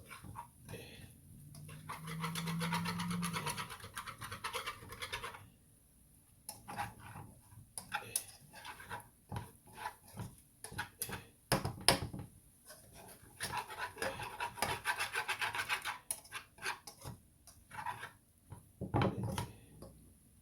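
Wire whisk scraping and clicking around a pan, stirring a flour-and-butter roux with onions. It comes in two stretches of fast strokes, each a few seconds long, with scattered single taps and clicks between them.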